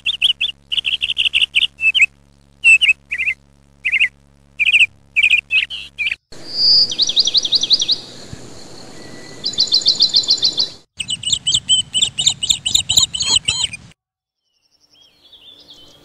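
Small songbirds calling: quick repeated chirps for about six seconds, then after an abrupt change a run of high fast trills, then rapid high twittering. The sound cuts off about fourteen seconds in, leaving a faint thin call near the end.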